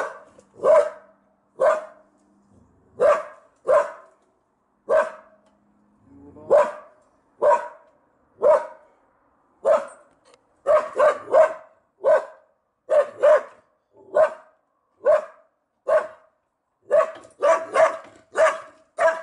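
A dog barking over and over, about once or twice a second, with some barks coming in quick runs of two or three.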